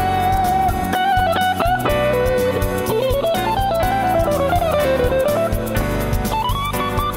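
Stratocaster-style electric guitar playing a lead line over a backing track with bass. It holds a note, then runs into a phrase of string bends and vibrato, and climbs to a held higher note near the end.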